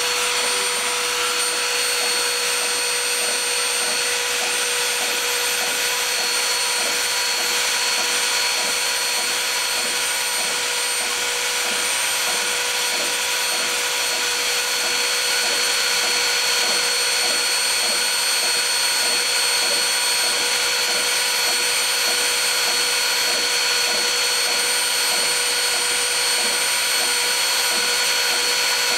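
Kress spindle motor on a DIY CNC machine running steadily at high speed, a constant high whine, while it drills hole after hole in a printed circuit board, with a faint regular beat about twice a second from the plunges.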